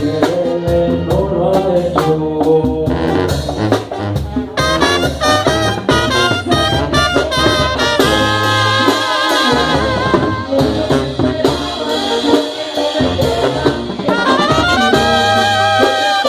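A Mexican banda plays an instrumental passage: the brass section carries the melody with wavering, vibrato-laden notes over a low bass line and a steady drum beat.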